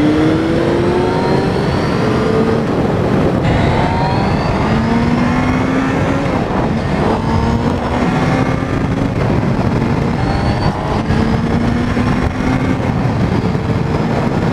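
Motorcycle engine accelerating through the gears, its pitch climbing and then dropping at each change, repeated about half a dozen times, over a steady rush of noise.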